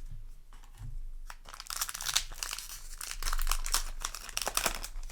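Foil booster-pack wrapper crinkling as it is torn open and handled, a dense crackle lasting about three seconds from near the start of the second second.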